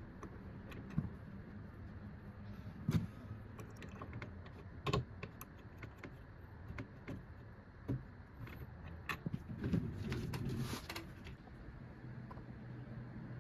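Scattered light clicks and knocks of small hard objects being handled, with a denser clattering stretch about ten seconds in.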